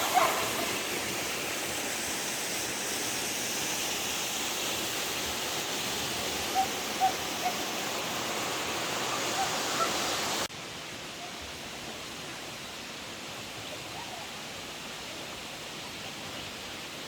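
Rushing water of McDowell Creek, a steady hiss. About ten seconds in it cuts abruptly to a quieter, steady rush.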